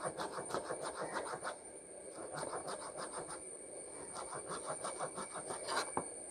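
Kitchen knife chopping ginger into thin strips on a plastic cutting board: quick, even taps of the blade on the board, about five or six a second, in several runs with short pauses between them.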